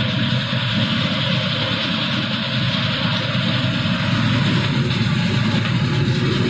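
Nut chopping machine running, its vibrating grading sieve shaking chopped nut pieces along and out of the outlet chutes: a steady mechanical rumble with a broad hiss.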